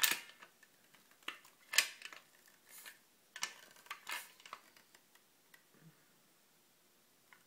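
A handful of short clicks and light scrapes over the first five seconds, from hands handling an opened tube of masonry patch caulk.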